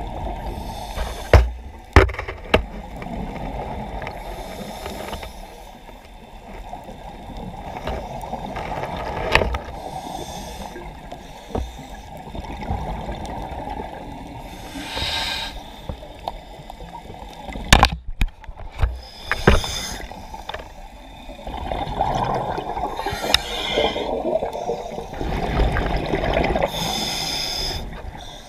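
Muffled underwater noise picked up through a waterproof camera housing, with short bubbling hisses every few seconds, more of them in the second half, and a few sharp knocks on the housing.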